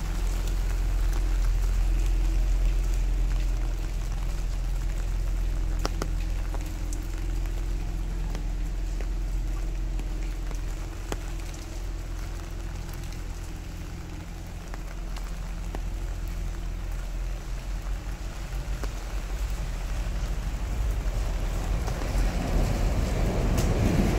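Steady rain with scattered sharp drop ticks, over the low steady hum of an idling vehicle engine that fades out about two-thirds of the way through. Near the end a rush of noise builds up.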